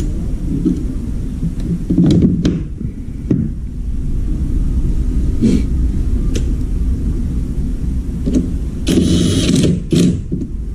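A steady low rumble runs under a few light clicks and knocks from hands working at a front-loading washing machine's door opening and rubber seal. A short, louder rushing noise comes about nine seconds in and again briefly near the end.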